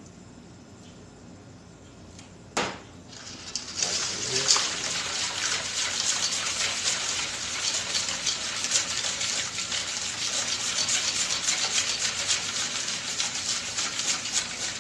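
Wire balloon whisk beating a liquid mix of water, coconut milk, sugar, salt and oil in a stainless steel bowl: a fast, continuous swishing and sloshing with the tines scraping the steel, starting about four seconds in after a single knock.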